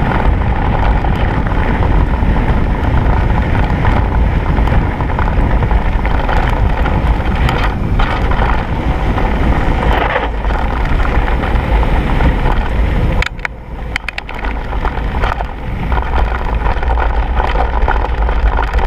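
Wind buffeting an action camera's microphone as a mountain bike rolls fast down a gravel dirt track, with tyre and frame rattle. About two-thirds of the way through it briefly drops quieter, with a few sharp clicks.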